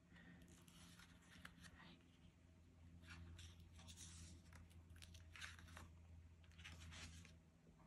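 Near silence with faint, scattered rustling of cardstock as handmade greeting cards are picked up, opened and set down, over a low steady hum.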